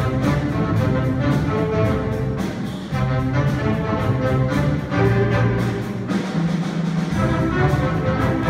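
Student jazz big band playing: saxophones, trombones and trumpets over piano and drum kit, with a steady beat.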